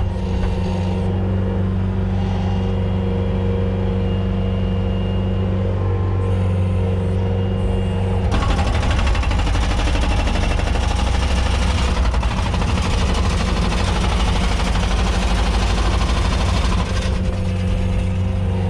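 A motor vehicle's engine running steadily with a low hum, joined by a louder rush of road noise about eight seconds in that eases off near the end.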